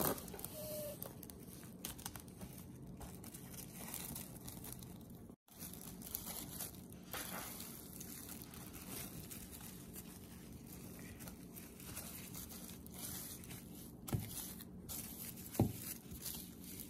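Plastic food wrap crinkling and rustling as it is stretched over a mixing bowl of dough and pressed around the rim, with a couple of light knocks near the end.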